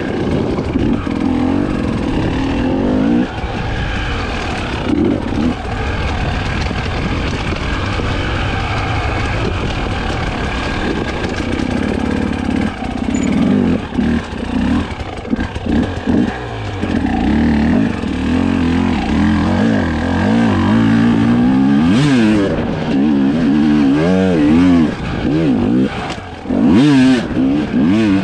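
Husqvarna TE 300i single-cylinder two-stroke enduro engine being ridden off-road, its revs climbing and dropping with throttle changes, with quick sharp rises and falls of pitch near the end.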